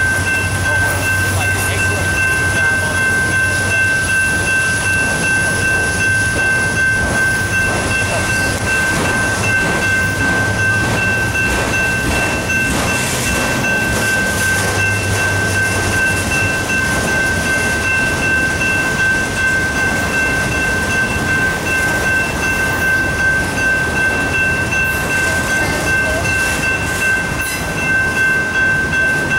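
Norfolk Southern autorack freight cars rolling past at close range: a steady rumble and clatter of steel wheels on the rails. A high ringing tone holds steady over it throughout, fitting the grade-crossing bell.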